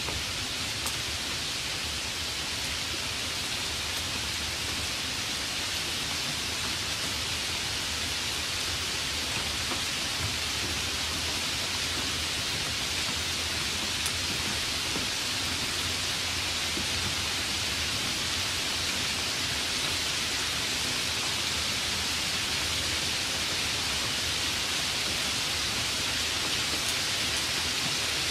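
Steady rain, an even hiss with a few faint ticks of drops.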